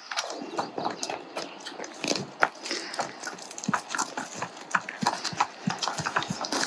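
Hooves of two saddle horses and a pack mule clopping at a walk on asphalt, in many short, irregular knocks.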